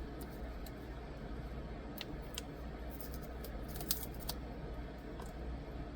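Scattered light clicks and taps from handling a phone and its screen protector, clustered in the middle, over a steady low hum.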